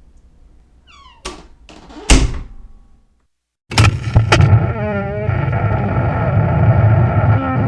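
Door hinges squeaking and a door knocking shut: a short falling squeak and two sharp bangs, then, after a break of dead silence, a clunk and a long, loud, wavering hinge creak that runs on.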